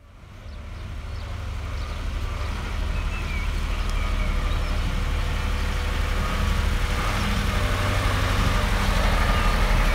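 Heavy dump truck's diesel engine running with a steady low rumble, growing louder throughout as the truck approaches.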